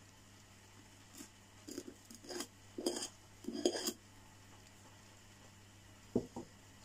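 Table knife scraping a spread onto a slice of bread in several short strokes, then two light clicks near the end.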